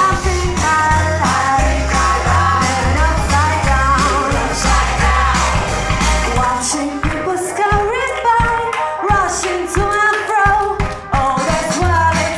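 A woman singing a pop song live into a handheld microphone over a backing with a strong bass line and drums. The bass drops out for about two seconds around seven seconds in, then comes back.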